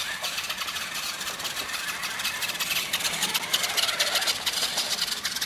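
Battery-electric toy RC car running: the motor and gears whir with a dense, rattly buzz that starts suddenly.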